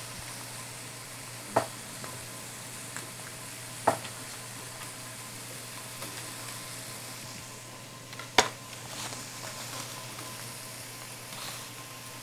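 Tofu frying in olive oil in a skillet, a steady sizzle. Three sharp knocks of a knife on a cutting board as tofu is sliced, the loudest near the end.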